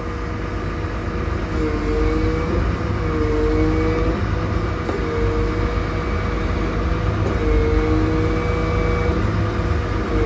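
Motor grader engine running with a steady low rumble, over which a whining tone wavers and shifts slightly in pitch every second or two.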